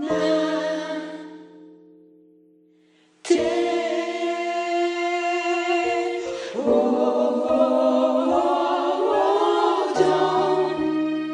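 Gospel choir of women's voices singing slow held chords. A chord dies away over the first two seconds, then after a brief near-silent gap the full choir comes in sharply and changes chord twice.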